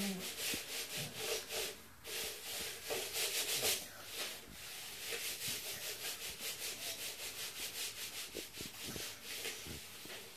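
Lego city being shaken back and forth on its board: a rhythmic scraping rub, repeated several times a second, with small knocks of bricks rattling.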